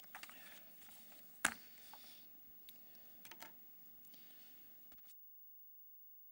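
Soft paper rustling and small handling clicks as Bible pages and a sheet of paper are turned at a lectern, with one sharp click about a second and a half in. About five seconds in the sound cuts out abruptly, leaving near silence with a faint steady tone.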